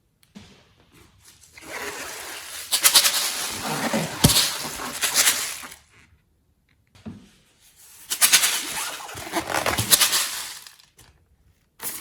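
Slime worked by hand, squishing and crackling in two bouts a few seconds each, with a short pause between.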